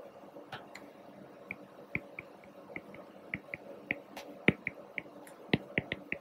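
Apple Pencil tip tapping on an iPad's glass screen during handwriting: a run of faint, short clicks at uneven spacing, a few a second.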